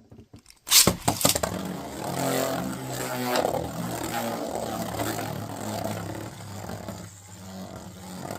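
A 3D-printed Beyblade (Galactus) is launched with a sharp rip about a second in, then spins in the stadium with a steady whirring hum and scraping against the stadium floor.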